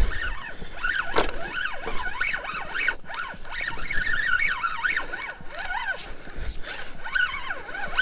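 Spinning reel cranked hard against a hooked fish. Its gear whine rises and falls in pitch with each turn of the handle, several times a second.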